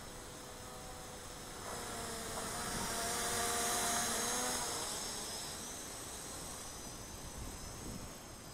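Hubsan H502E quadcopter's small electric motors whining as it flies past, swelling over a couple of seconds and then fading, over a steady hiss.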